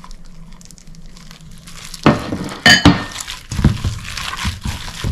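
Shredded young coconut being tipped from a white ceramic dish into a stainless steel mixing bowl of purple dough, with a loud knock about two seconds in and a ringing clink of the dish soon after. Then a plastic-gloved hand works the coconut into the sticky dough, giving a run of soft squishing, crinkling strokes.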